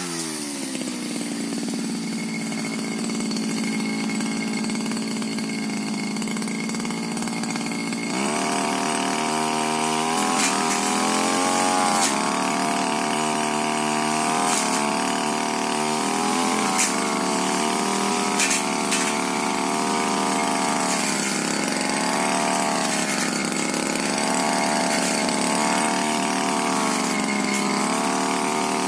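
Tiger TG328 brush cutter's small two-stroke engine drops to idle and idles steadily. About eight seconds in it revs up sharply and runs at high revs, its pitch dipping and recovering as the blade cuts through brush, with a few sharp ticks.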